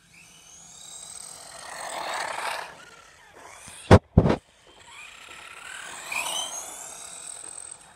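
Electric motor of a high-speed RC truggy whining as it drives past, twice, each pass swelling and fading with gliding pitch. Two sharp bangs about four seconds in are the loudest sounds.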